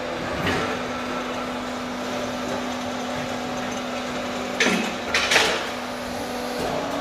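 Automatic fly ash brick plant running: a steady machine hum with a constant tone. There are two loud knocks close together about five seconds in.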